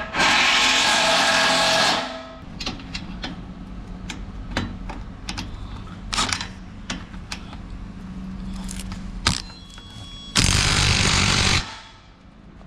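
Hand-held power tool run in two bursts, one about two seconds long at the start and a shorter one near the end, tightening the exhaust fasteners. Scattered metal clicks and knocks come between the bursts.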